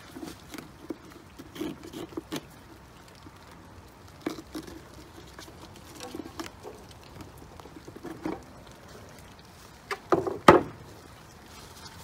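Hands working at a plastic trailer battery box and its cables: scattered clicks, knocks and rustles, with a louder cluster of knocks about ten seconds in.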